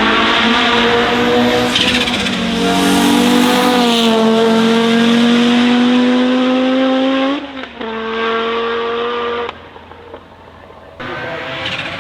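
The 2.1-litre turbocharged five-cylinder engine of an Audi Sport Quattro S1 E2, run hard under acceleration, its pitch climbing steadily. It breaks off abruptly about seven seconds in, runs again, and drops away for about a second and a half near ten seconds before returning loud near the end.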